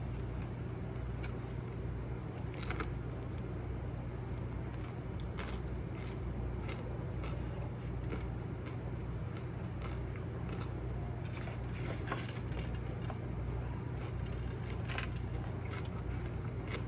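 Close-up eating sounds: irregular small crackles and clicks of biting and chewing over a steady low hum.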